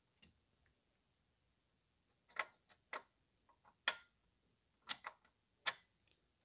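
A scattered series of sharp metal clicks and taps, about eight of them, irregularly spaced, as the intake camshaft locking tool is handled and seated against the camshaft flats on the cylinder head.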